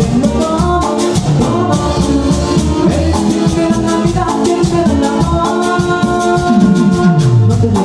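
Live band playing Latin dance music from a medley: keyboard, drums and a metal güiro scraping a steady beat of high ticks, with a low note sliding down near the end.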